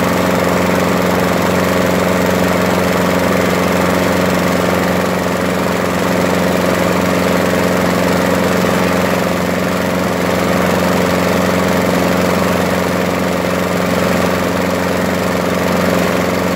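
Walk-behind lawn mower's single-cylinder engine running steadily at about 2,700 rpm, with no change in speed.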